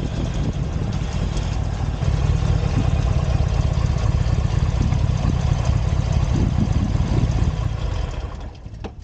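Harley-Davidson Iron 883's air-cooled V-twin engine running, with road and wind noise; it fades down about a second before the end.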